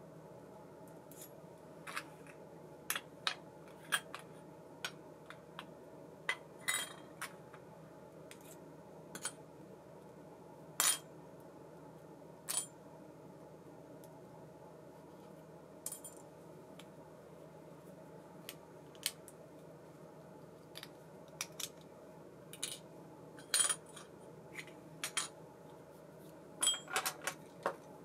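Baitcasting reel and its small metal parts being handled: irregular sharp metallic clicks and clinks, some in quick pairs or clusters, over a steady low hum.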